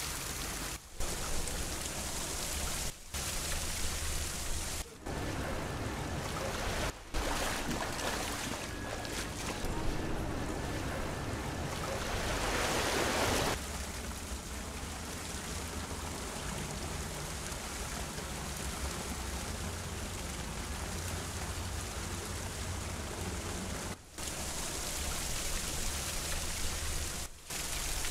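Steady rushing hiss of rain and flowing water, broken by several brief drop-outs where the footage is cut, and swelling louder for about a second and a half around the middle.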